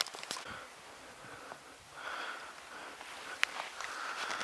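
Faint rustling and breath-like noises with a few small clicks, and one sharper click about three and a half seconds in.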